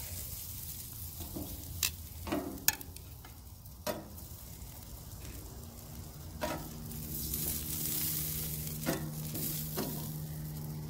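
Sausages and chicken gizzards sizzling over a charcoal grill while metal tongs click sharply against the grate and plate a few times, about two to four seconds in. From about six seconds in, a low steady hum joins.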